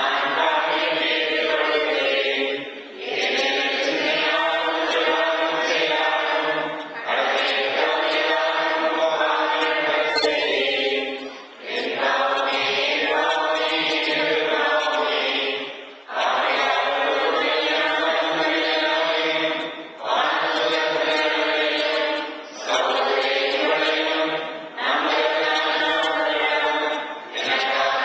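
Choir and congregation singing a penitential chant at Mass in unison, phrase by phrase with short breaths between.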